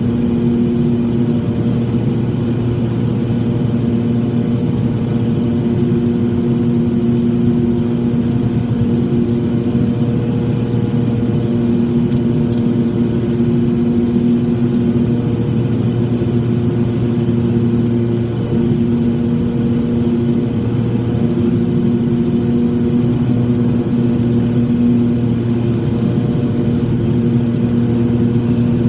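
Twin turbocharged six-cylinder Continental engines and propellers of a Cessna 340 in cruise descent, heard inside the cabin as a steady drone with a slight wavering. Two faint ticks about twelve seconds in.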